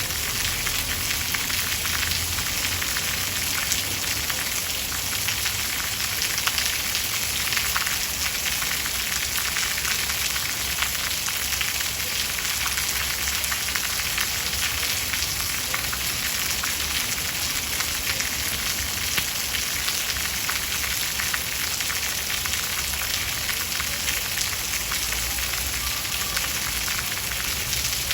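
Steady rain falling: a dense, even hiss of countless drops with a fine crackle.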